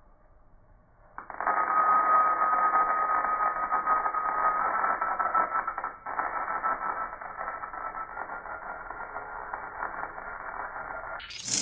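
Slowed-down sound of a machine tool cutting into a metal workpiece under coolant, throwing sparks. It is a dense crackling noise with a faint steady tone. It starts about a second in, dips briefly about halfway, and cuts off just before the end.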